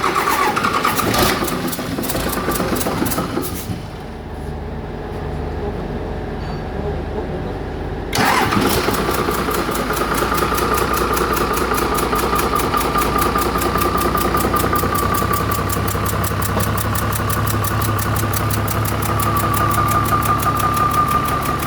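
Diesel engine of a Doosan excavator, freshly overhauled, starting and running. It runs loud and busy for a few seconds, drops to a quieter, duller note, then about eight seconds in picks up suddenly to a louder, steady run with a high tone over it.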